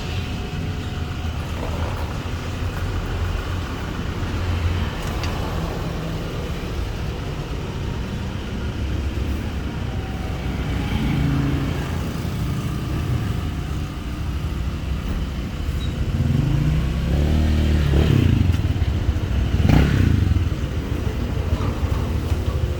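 Freshly overhauled Euro 150 motorcycle engine, its third gear just replaced, running steadily, then revved up twice in the last few seconds.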